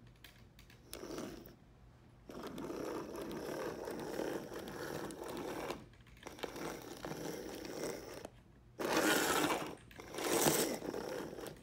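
Chassis of a vintage Playart 0-4-0 model locomotive running on the track, its motor and freshly greased metal running gear giving a mechanical whir and rattle. The sound fades and returns as the chassis goes round, and is louder twice near the end.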